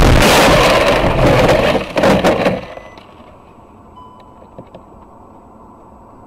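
Car crash heard from inside the cabin: loud crashing and scraping with several sharp cracks as the car hits and slides, dying away about two and a half seconds in to a faint hiss.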